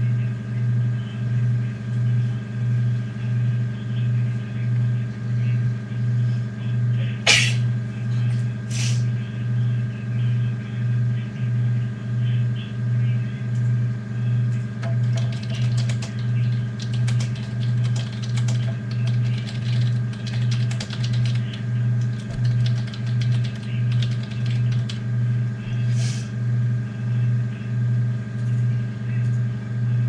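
Steady low hum that throbs a little more than once a second. Two sharp clicks come about a quarter of the way in, another near the end, and faint scattered ticking in the middle.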